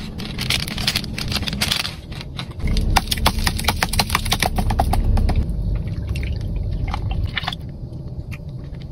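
Plastic packaging crinkling and clicking as a multipack of drink boxes is handled, with a low rumble for several seconds in the middle. Near the end, a drink is poured from a carton into a plastic cup.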